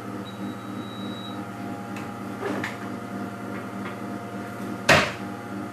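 Steady hum of a kitchen appliance with a few light knocks, then one loud knock about five seconds in as a wire cooling rack is fetched and handled.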